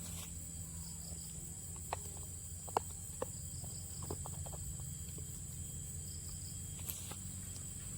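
Rural outdoor ambience: a steady high-pitched insect drone with faint repeating high chirps, over a low steady hum. A few light clicks and taps come between about two and four seconds in.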